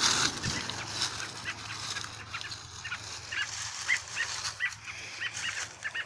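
American robin giving short, sharp alarm calls, two or three a second from about two seconds in: an agitated parent robin with a snake at its nest. Rustling of brush near the start.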